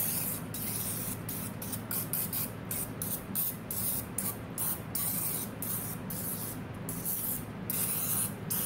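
Aerosol butter cooking spray hissing in many short bursts, a couple a second, as it is sprayed into the cups of a metal muffin pan.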